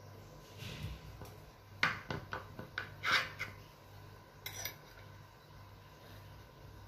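Metal knife and cake server clinking and scraping against a serving plate as a slice of chocolate cake is cut and lifted out: a quick run of sharp clinks and scrapes about two seconds in, then one more clink near the middle.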